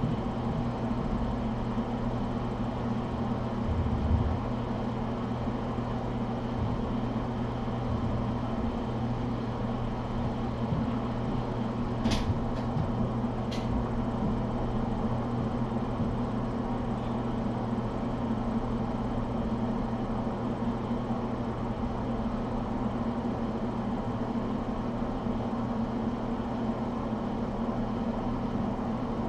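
Steady low hum and hiss of room background noise, with two short sharp ticks about a second and a half apart midway through.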